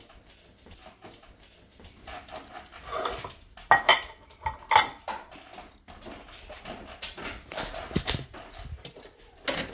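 Dishes and utensils clattering as they are handled in a kitchen: scattered clinks and knocks, with a few louder sharp strikes.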